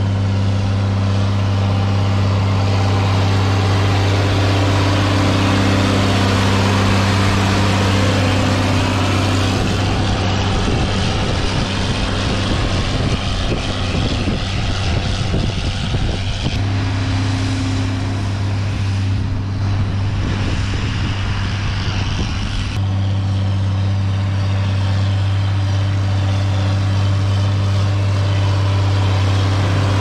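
John Deere 4430 tractor's turbocharged six-cylinder diesel engine running at a steady working speed while pulling a round baler. The sound changes abruptly a few times, with a rougher, fluttering stretch in the middle.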